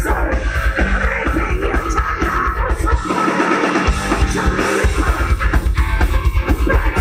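Live heavy metal band playing: distorted electric guitars over rapid bass drum beats. The bass drum drops out for about a second midway through, then comes back.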